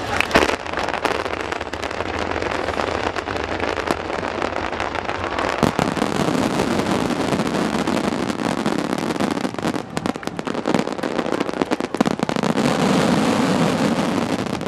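Aerial fireworks bursting and crackling densely, with a few sharper bangs standing out.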